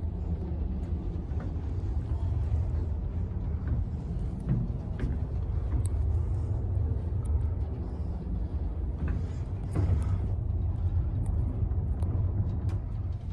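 Otis traction lift car travelling down the shaft: a steady low rumble from the moving car, with a few faint clicks and ticks.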